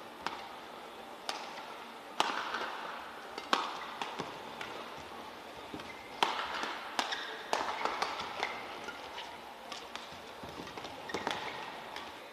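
Badminton racket strings striking a feather shuttlecock back and forth in a rally: about ten sharp hits roughly a second apart, each ringing briefly in the hall, ending near the end.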